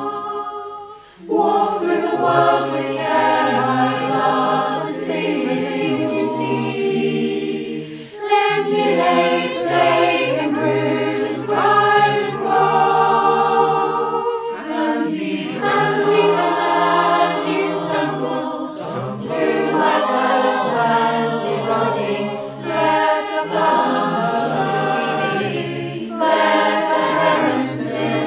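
Mixed-voice folk choir singing an arranged part-song in harmony, with a brief break between phrases about a second in.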